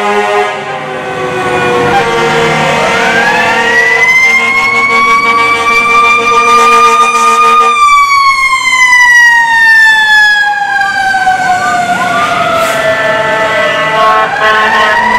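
Fire apparatus siren winding up to a steady wail, with a steady lower tone held beneath it. About halfway through the pitch drops suddenly as the truck passes, then the siren winds slowly down and starts winding up again near the end.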